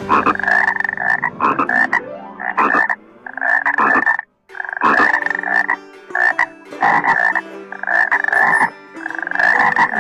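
A frog croaking in a run of about nine calls, each under a second long, with a brief pause about four seconds in.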